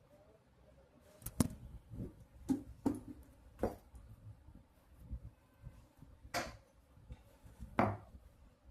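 Irregular knocks and clinks of tools and metal parts being handled, about eight in all. A few ring briefly, the loudest about a second and a half in.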